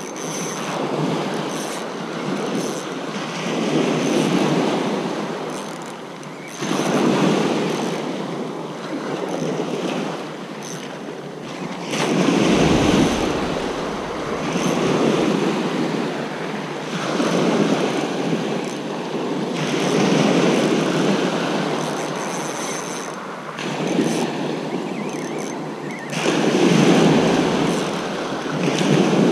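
Small sea waves breaking and washing up a shingle beach, the rush swelling and easing every two to three seconds.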